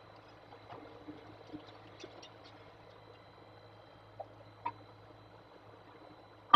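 Faint steady electrical hum with a thin high whine, broken by a few light ticks about two seconds in and two soft knocks near the end.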